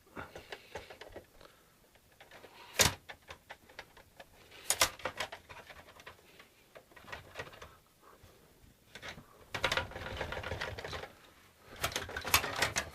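Plastic clicks, snaps and knocks of an Xbox 360's casing panels being pried and pulled off by hand, with a busier stretch of rubbing and rattling near the end.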